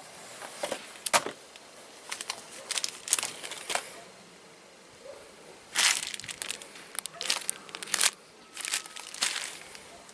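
Irregular clusters of sharp clicks and rustling, with the loudest around a second in and again near the middle and toward the end.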